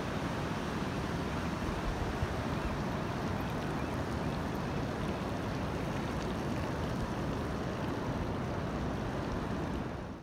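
Steady rushing noise of wind buffeting the microphone mixed with surf washing up the beach, heaviest in the low end, as the bike rolls along the wet sand.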